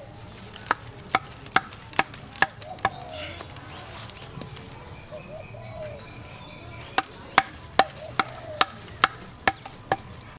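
Bamboo stakes being driven into the ground by blows from a thick bamboo section used as a mallet: sharp knocks about two a second, six in a row, then a pause of about four seconds, then eight more.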